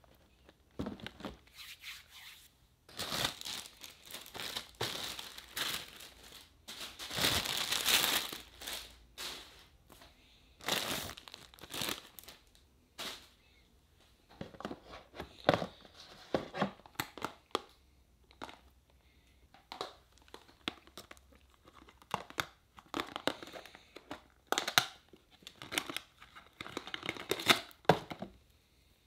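Crinkly plastic packaging rustling in irregular bursts as camera accessories are unpacked from a cardboard box, loudest a few seconds in. Later come shorter handling sounds with small clicks and taps.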